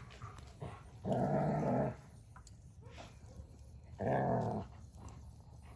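German Shepherd growling in play while mouthing a log: two rough, low growls, the first a little under a second long and the second shorter, about three seconds apart.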